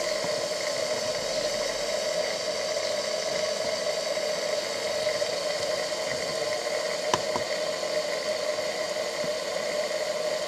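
Steady hiss from a 3.5-inch-gauge live-steam locomotive in steam, acting as the steam supply. A single sharp click sounds about seven seconds in.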